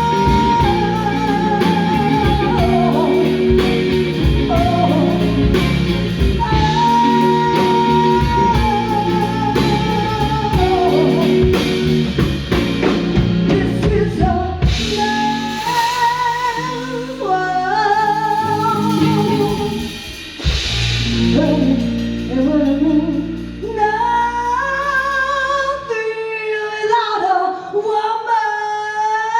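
Live band playing a slow soul ballad: an electric guitar lead with long held notes over bass and drums, then a woman's voice takes over with long wordless wails and wide vibrato. About three-quarters of the way through, the band drops out and she carries on unaccompanied.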